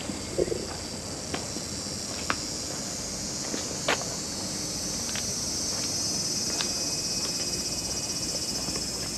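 A steady, high-pitched chorus of insects, swelling slightly after the middle, with scattered footsteps and light clicks.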